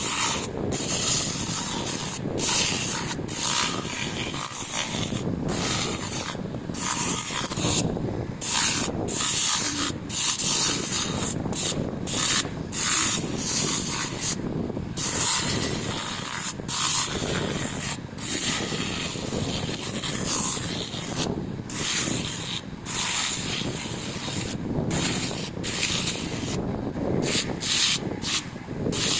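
Sandpaper rubbed back and forth by hand over a motorcycle's metal rear footpeg, a scratchy rasp in repeated strokes with short breaks between them.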